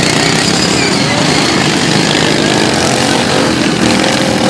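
Several racing lawn mower engines running hard together, their pitches sliding up and down as the mowers pass.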